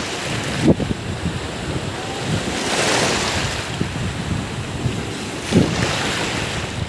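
Sea waves breaking and washing on a beach, with a wave surging up about three seconds in. Wind buffets the microphone in gusts, twice.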